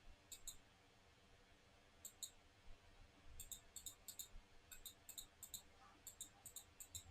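Faint, sharp clicks, mostly in quick pairs, a few at first and then many more from about three and a half seconds in.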